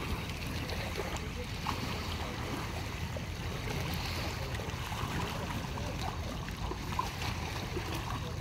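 Steady rushing noise of water and wind, strongest in the low range, with scattered faint ticks.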